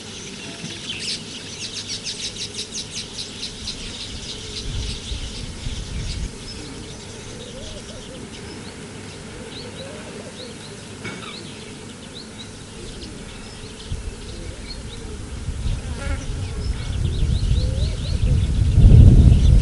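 Wild birds chirping and calling, with a rapid trill of repeated notes in the first few seconds. A low rumbling noise swells near the end and is loudest just before it stops.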